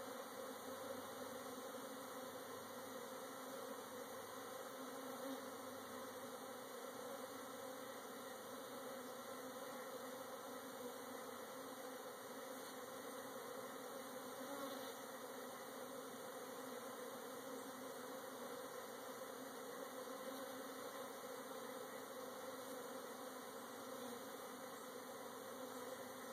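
Steady hum of honey bees flying around the hives, even and unbroken.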